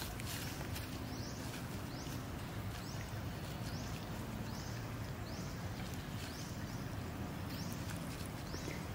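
Steady outdoor background with a low hum, and a short, high, upward-sweeping chirp repeating about once a second.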